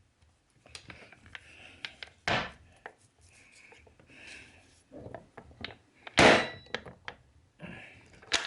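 Clicks, knocks and rubbing of a socket being worked onto the anvil of a cordless impact wrench, which keeps slipping off, with two louder short knocks about two and six seconds in.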